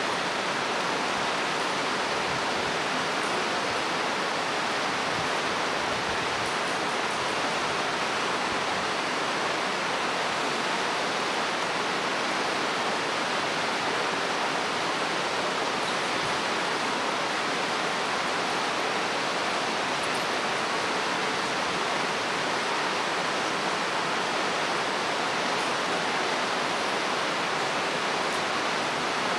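A steady, even rushing noise with no tones in it, holding one level throughout.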